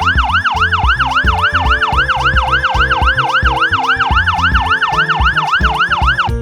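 Fire engine siren wailing in a fast yelp, its pitch sweeping up and down about three and a half times a second, stopping abruptly near the end.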